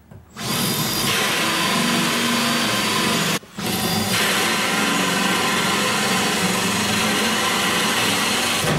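Power drill running a hole saw through the wooden cabinet wall. The hole saw cuts steadily, stops briefly about three and a half seconds in, then cuts on until near the end.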